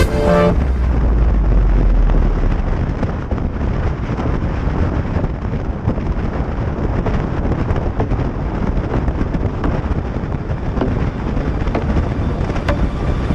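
Wind rumbling and buffeting on the microphone of a moving motorbike, with engine and road noise underneath. Music cuts off about half a second in.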